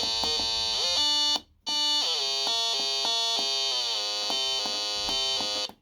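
Breadboard oscillator circuit sounding a buzzy electronic tone through a small speaker, its pitch stepping and sliding up and down as it is tuned. It drops to a lower note and cuts out briefly about a second and a half in, then stops suddenly near the end.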